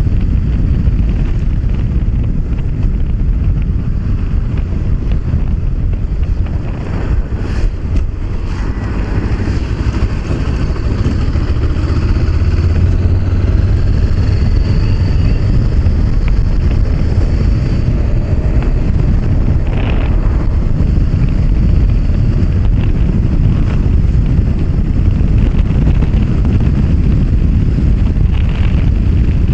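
Honda CB500X motorcycle at road speed: wind rushing over the microphone, with the parallel-twin engine running steadily underneath.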